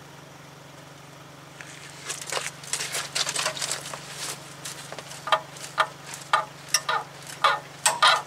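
Breaker bar being forced against a seized front axle nut: short strained sounds of effort and load start about two seconds in and settle into about two a second near the end, over a steady low hum. The nut is rusted tight and does not give.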